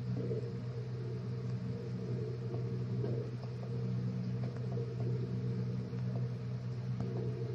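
A steady low hum with a few faint, irregular ticks over it.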